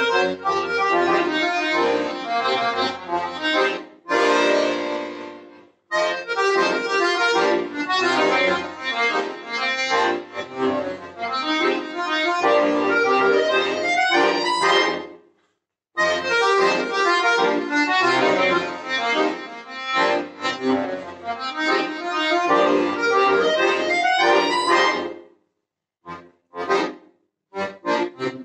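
Solo chromatic button accordion playing a fast, busy passage of quick notes and chords. It holds one chord about four seconds in, stops briefly near six and fifteen seconds, and breaks into short detached chords near the end.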